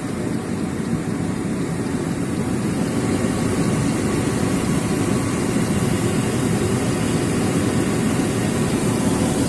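Chevrolet Blazer engine running steadily, its freshly overhauled power steering pump running quietly.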